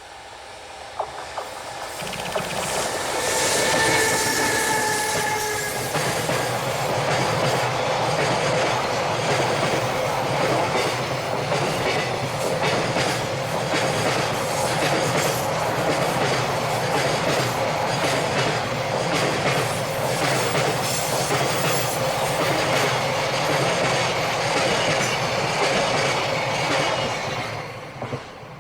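A container freight train hauled by an EH500 electric locomotive passes close by. The train comes up loud over the first few seconds with a brief, slightly falling pitched sound as the locomotive goes by, then a long steady run of wagons clickety-clacking over the rail joints, fading near the end.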